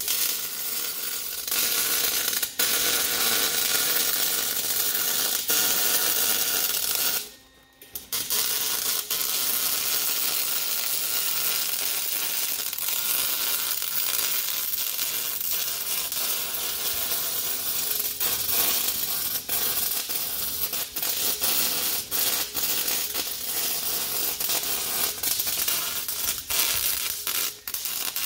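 Electric arc welder laying a bead around a stuck bearing race to heat it loose, a steady crackling hiss. The arc stops briefly about seven seconds in, then strikes again and runs on.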